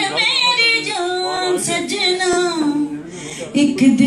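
A woman singing a Punjabi song into a handheld microphone, holding long wavering notes, with a short break about three seconds in before the voice comes back in.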